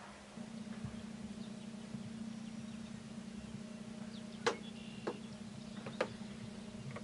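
A steady low hum runs throughout, growing louder just after the start. Three sharp clicks come in the second half.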